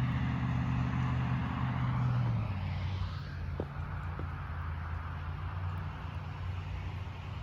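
A motor vehicle's engine running with a steady low hum that drops to a lower pitch about two and a half seconds in, over a hiss of traffic noise.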